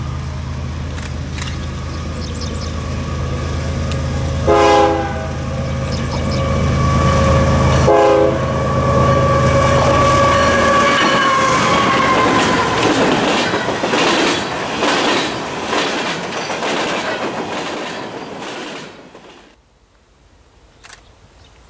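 Diesel locomotives of a loaded BNSF coal train running past, with two short horn blasts about 4.5 and 8 seconds in. The coal hoppers follow with wheels clacking over the rail joints and squealing faintly on the curve, and the sound drops off sharply near the end.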